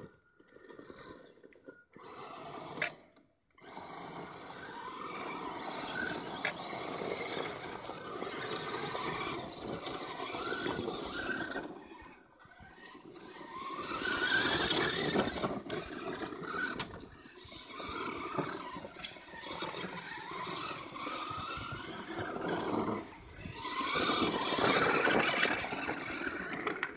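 Two 1/10-scale electric RC trucks, a crawler and a basher, driving over a dirt trail: their electric motors whine, rising and falling in pitch with the throttle. The whine drops out briefly about three seconds in and again near the middle.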